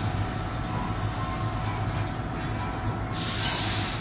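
Automatic bag-filling packing machine running with a steady mechanical hum and whir. About three seconds in comes a short, loud hiss lasting under a second.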